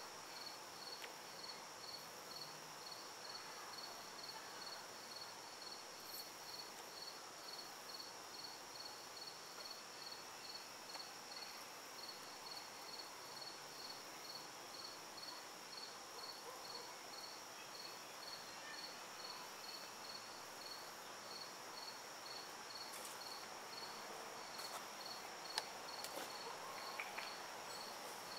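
Insects chirping steadily: a continuous high trill with a regular pulse about twice a second. A few brief clicks sound near the end.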